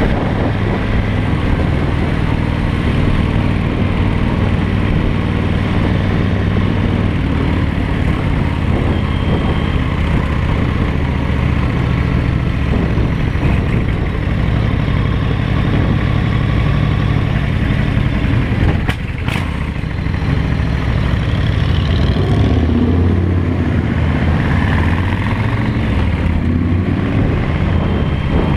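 Cruiser motorcycle engine running steadily under way, heard from the bike itself, with road and wind noise; the engine note drops off briefly about two-thirds of the way through, then picks up again.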